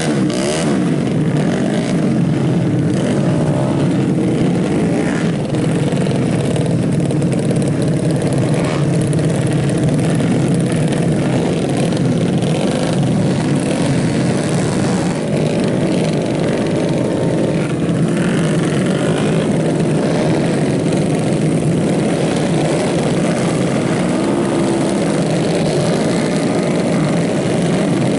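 Tuned 131cc automatic scooter racing engines revving hard without a break as a pack of bikes circulates, their pitches rising and falling and crossing as bikes pass, loudest passes in the first second.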